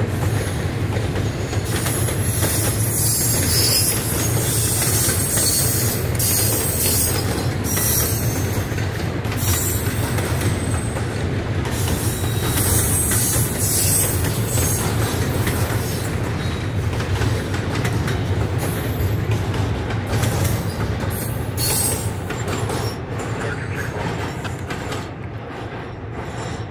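Double-stack intermodal freight train rolling past, its well cars rumbling steadily on the rails, with shrill wheel squeal coming and going through the middle. The sound fades near the end as the last car goes by.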